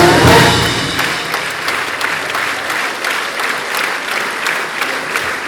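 Symphony orchestra's last sustained chord fading out about a second in, under a concert audience's applause that carries on after it.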